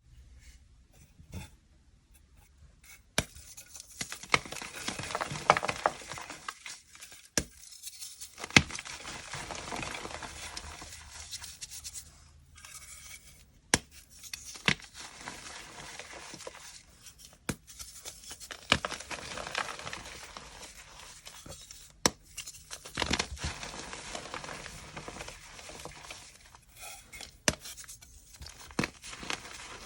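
Gym chalk blocks and reformed chalk being broken and crushed: a few sharp snaps, each followed by a few seconds of dense crunching and crumbling.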